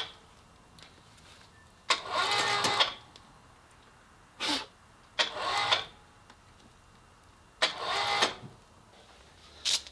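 Bursts of metallic rattling and clicking from the chain on a gantry hoist, worked in short spurts to lift and tip up a 351M V8 engine block. There are five separate bursts of about half a second to a second each, with quiet between them.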